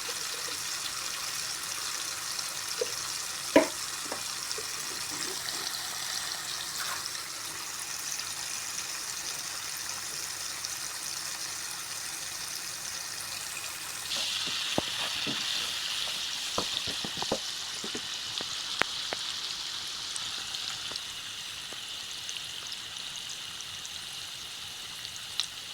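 Food sizzling as it fries in a pan, a steady hiss that gets louder about halfway through, with a few clinks of a spoon or spatula against the pan.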